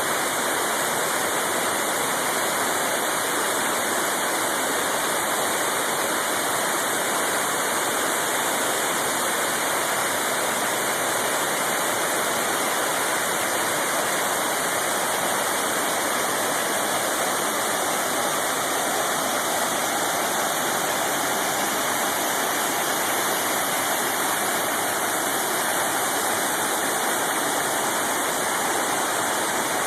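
Waterfall crashing onto rocks with a steady, unbroken rush of falling water.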